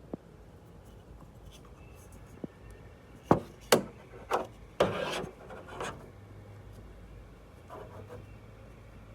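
Handling noises: a quick run of sharp clicks and scraping rubs in the middle, then a softer rustle near the end.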